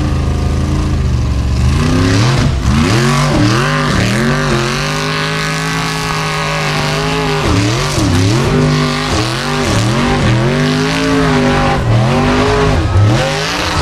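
Formula Offroad hill-climb buggy's engine revving hard and unevenly under full load as it climbs a steep dirt slope. The pitch surges up and drops back again and again as the throttle is worked and the tyres bite and spin.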